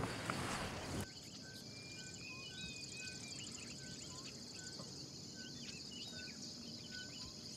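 Steady high-pitched insect drone over dry bush, with a bird repeating a short whistled note about every half second and other birds chirping briefly. A short burst of rustling noise comes in the first second.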